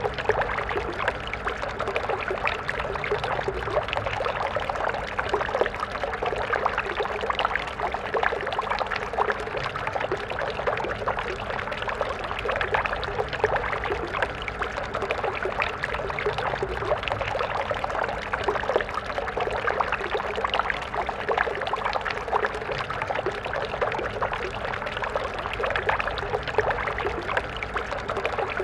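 Stream water flowing and splashing over stones, a steady babbling rush with many small bubbling flickers.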